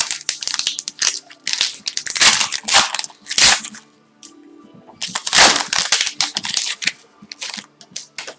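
Trading cards and foil pack wrappers being handled, crinkling and rustling in several loud bursts.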